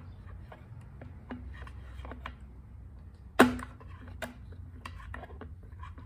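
Small clicks and taps of hemostats and fingers working a fuel line into the plastic fuel tank of a Husqvarna trimmer, with one sharp, much louder click a little past halfway, over a steady low hum.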